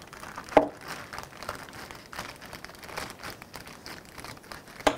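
Thin plastic packaging bag crinkling as it is handled and cut open with scissors. A sharp click about half a second in and another near the end.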